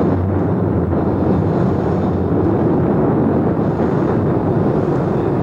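Space Shuttle main engine, a liquid-fuelled rocket engine, firing on a test stand: a loud, steady, deep roar.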